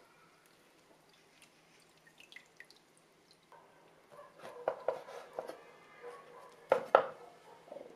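A chef's knife chopping softened dried squid strips on a wooden cutting board: a run of uneven knocks, the loudest two close together near the end. Before that, faint drips and squishes from the wet squid being squeezed over a bowl of water.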